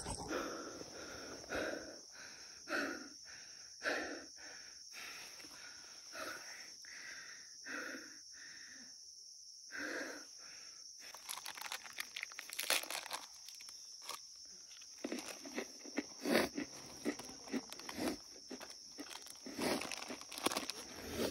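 A man panting hard as he climbs a steep trail, a breath about every second. Past the middle this gives way to crunching footsteps and the rustle of dry leaves and undergrowth, over a steady high hiss.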